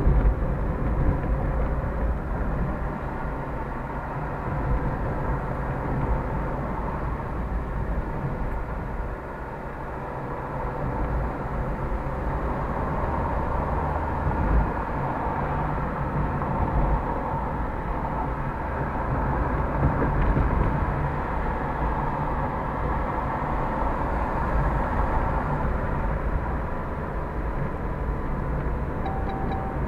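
A car's engine and tyre and road noise heard from inside the cabin while driving at road speed: a steady low drone with a rushing hiss over it.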